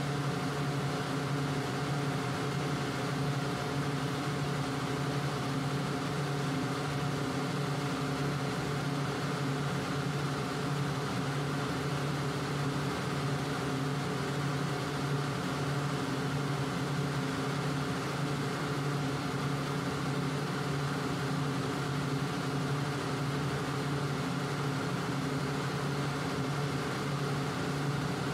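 Industrial air compressor running with a steady, unchanging hum.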